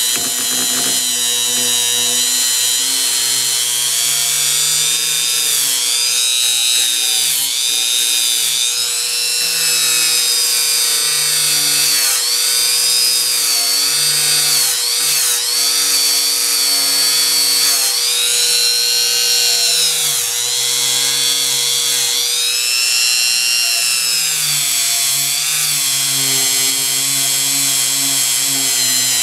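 Dremel rotary tool running at high speed with a nylon brush scrubbing corrosion off a rusty adjuster nut and threaded rod; the motor's steady whine dips in pitch and recovers several times as the brush is pressed onto the part.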